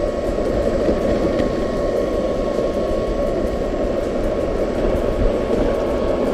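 An electric skateboard riding fast over pavement: steady wind buffeting on the action-camera microphone mixed with wheel rumble on the road, with a faint steady whine underneath.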